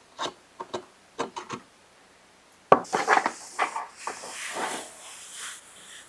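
Hands working on small-engine parts at a workbench. A few light clicks and knocks of parts being handled come first, then a sharper knock, then a few seconds of rubbing and scraping.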